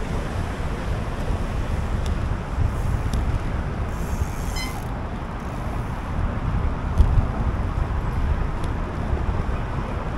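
Wind rushing over the microphone of a moving bicycle, a steady low rumble, with a few faint clicks and a brief high-pitched ringing about four seconds in.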